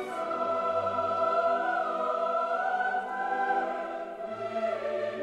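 Choral music: voices holding long notes that slowly shift in pitch.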